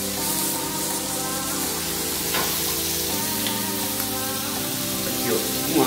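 Two pepper-crusted beef steaks searing in clarified butter in a frying pan, a steady sizzle, with background music over it.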